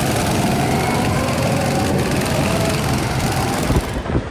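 Several small go-kart engines running steadily as karts circle the track, cutting off abruptly near the end.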